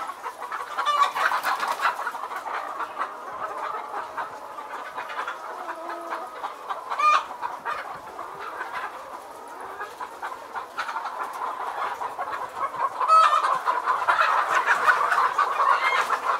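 A large flock of caged chickens clucking together in a dense, continuous chatter, with a few sharper squawks standing out and the clucking growing louder near the end.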